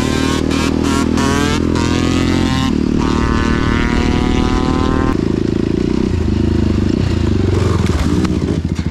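Enduro dirt bike engines on the road: the KTM EXC-R 530 carrying the camera, with a Suzuki RM250 alongside, revving up twice with the pitch climbing, then dropping to a lower, uneven note about five seconds in.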